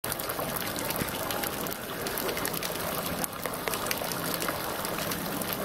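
Street fountain running: water spouting from a stone figure's mouth and trickling down into the basin. It makes a steady splashing rush with many small patters and drips.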